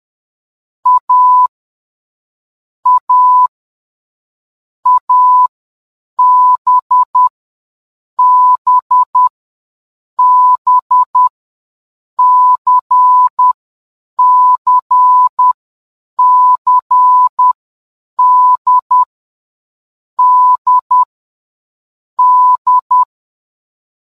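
Morse code sent as a single-pitched electronic beep tone. Short and long beeps (dots and dashes) are grouped into letters, one letter group about every two seconds, spelling out the alphabet in order.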